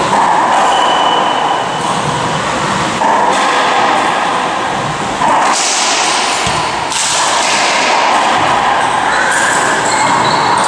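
Racquetball rally: the ball smacking off racquets and the court walls, sharp knocks over a steady, loud background noise in the enclosed court.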